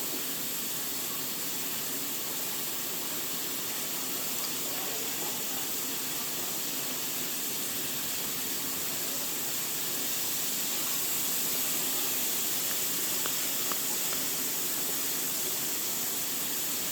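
Steady high-pitched hiss with no clear event in it.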